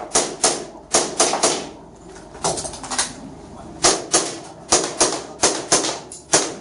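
Airsoft gas blowback pistol firing rapidly: sharp clacks, mostly in quick pairs and threes a fraction of a second apart, about a dozen shots in all.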